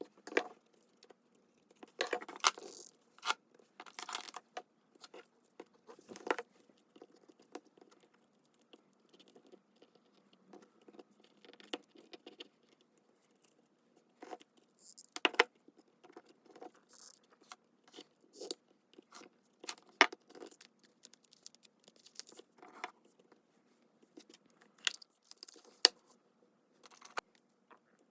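Paper being handled at a desk while making junk-journal tags: irregular rustles, taps and small clicks with short pauses between them.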